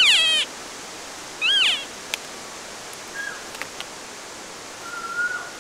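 Cow elk mews: a high, whistle-like call falling steeply in pitch, then a short rising-and-falling chirp about a second and a half later, with a couple of faint thin mews near the end.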